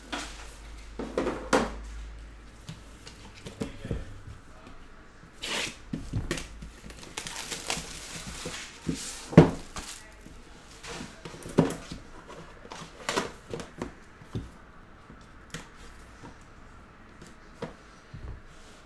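A metal Panini Immaculate trading-card tin being unwrapped and handled: plastic wrap torn and crinkled off it, with scattered clicks and knocks from the tin being moved and set down. The loudest is a sharp knock about nine seconds in.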